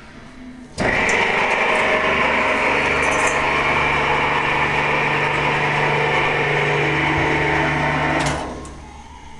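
Bowl-tipping drive of a heavy-duty stainless twin-shaft paddle mixer running while the bowl tilts: a steady motor hum and whine that switches on abruptly about a second in and dies away near the end.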